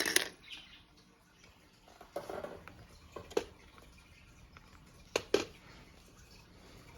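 Handling noise from a plastic selfie stick tripod: a few scattered clicks and knocks, the sharpest right at the start and a double knock about five seconds in.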